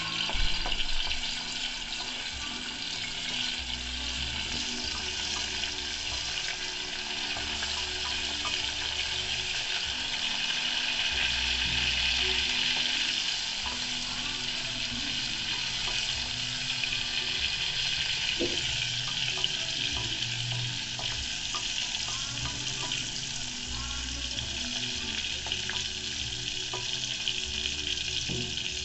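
Chopped garlic sizzling steadily in hot oil in an aluminium pressure cooker, a little louder about twelve seconds in, with faint ticks and scrapes of a wooden spatula stirring it.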